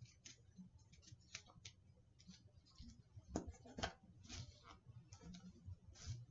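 Faint, scattered clicks and brief rustles of hands folding a cotton t-shirt and pressing on masking tape, a few slightly louder ones about three and a half seconds in.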